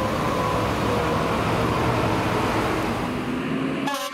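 Fire truck siren winding down in a slow falling tone over loud engine and road noise. Just before the end there is an abrupt break, and another siren starts to rise.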